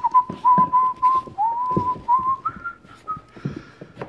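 Airedale Terrier puppy whining in a high, thin, whistle-like tone for about three seconds. The whine comes as a string of short pulses, each scooping up at the start, and steps up in pitch near the end. Light clicks and knocks come from the puppies moving in the crate.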